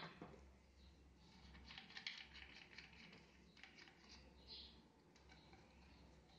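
Faint handling sounds of plastic drip-irrigation tubing and fittings worked by cloth-gloved hands: soft scattered clicks and rustles, a little busier about two seconds in.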